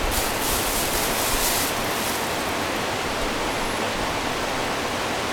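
A steady, even hiss throughout, with a thin plastic sheet rustling during the first second and a half as it is lifted off damp clay pots.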